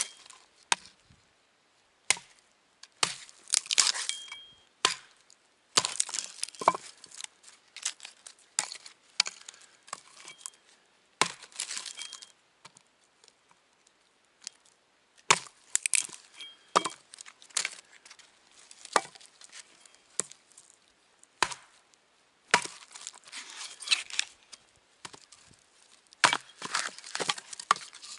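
Small axe chopping and splitting thin sticks of wood for kindling: irregular sharp wooden knocks and cracks, some coming in quick crackling runs as the wood splits and splinters.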